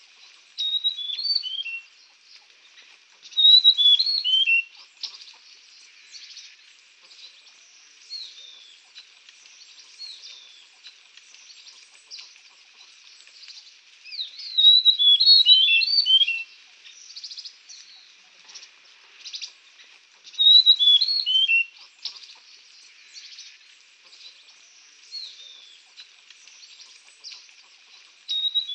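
Songbird singing: short phrases of quick, high, descending whistled notes, repeated every few seconds, with softer scattered chirps between them.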